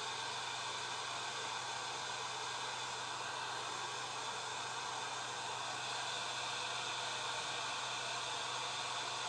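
Hot air gun's blower fan running steadily, a continuous rush of air with a faint low hum underneath, with the heater on and warming up.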